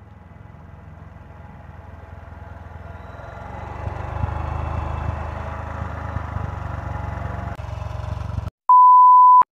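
Motorcycle engine running, growing louder about four seconds in as the bike pulls up, then cut off abruptly near the end. A loud steady censor bleep follows, lasting under a second.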